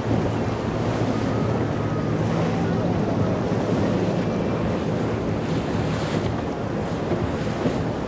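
Boat engines running steadily under the rush of waves and surf, with wind buffeting the microphone.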